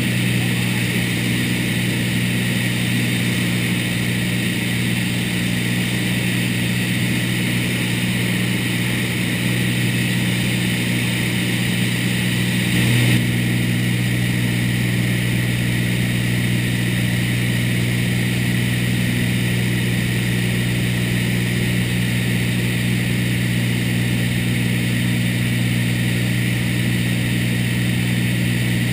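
Single-engine light aircraft's piston engine and propeller running steadily in flight, heard from inside the cabin as a constant low hum with a wash of engine and wind noise. A brief, slightly louder swell comes about halfway through.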